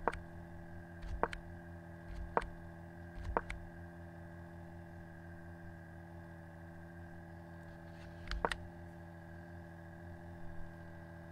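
A few short, sharp computer clicks, five in all with a long gap in the middle, as the game is stepped forward move by move. Behind them runs a steady electrical hum.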